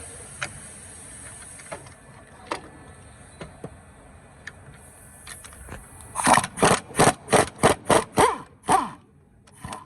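Scattered metallic tool clicks, then a power wrench run in about nine quick short bursts, roughly three a second, loosening a fastener on the engine mount; a single last burst comes near the end.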